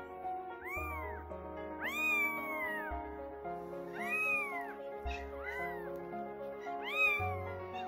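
Newborn kittens mewing: about six high cries that rise and fall in pitch, the longest and loudest about two seconds in. Background music plays underneath.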